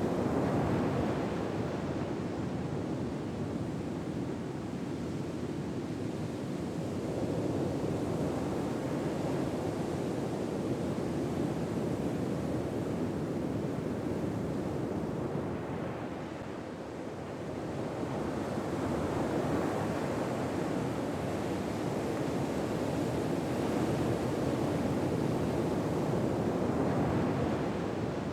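Ocean waves washing ashore in slow swells that rise and fall, with a lull about two thirds of the way through.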